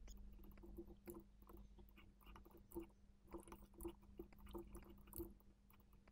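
Near silence: faint scattered clicks of a computer mouse and keyboard over a low steady hum.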